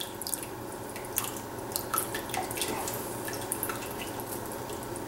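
A spoon stirring a pot of broth and dumplings, with scattered light clicks and small liquid sounds as cornstarch slurry is trickled in, over a steady low hum.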